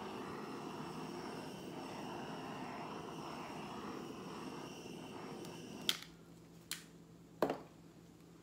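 Handheld torch flame hissing steadily as it is played over wet poured acrylic paint to bring up cells. The flame stops about six seconds in, followed by a few sharp clicks.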